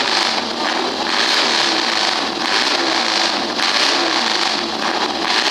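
Vintage auto-race motorcycle engine running loudly, its revs rising and falling repeatedly.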